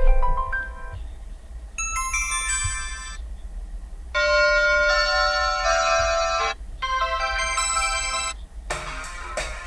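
Default Asus ROG Phone 6 ringtones previewed one after another: about five short electronic tunes of steady pitched notes, each cut off after one to two seconds as the next one starts. The last one, near the end, has a clicking percussive beat.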